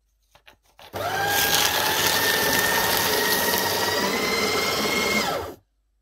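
Fellowes M-8C paper shredder starting up as a sheet of paper is fed in, after a few short rustles. Its motor runs steadily with a whine while the cutters shred the sheet for about four and a half seconds, then winds down and stops.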